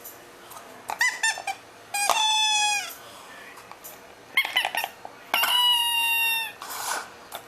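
Composition doll's bellows crier squeaking: a few short squeaks, then two longer reedy cries of about a second each, the pitch sagging at the end of each.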